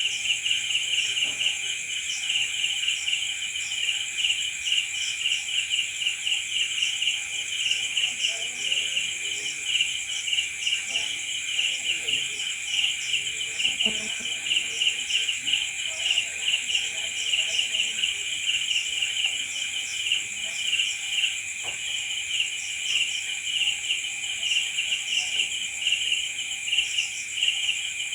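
Crickets chirping at night, a dense chorus of many insects overlapping in rapid, continuous trills at two pitches, one high and one higher still.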